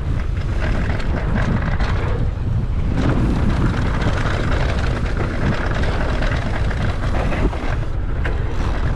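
Wind buffeting the ride-mounted camera's microphone at riding speed over a mountain bike's knobby tyres rolling on dirt, with the odd knock and rattle from the bike as it rides over bumps.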